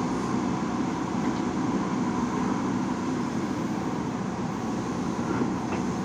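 JCB backhoe loader's diesel engine running steadily under load while the backhoe arm swings, with a faint click or two near the end.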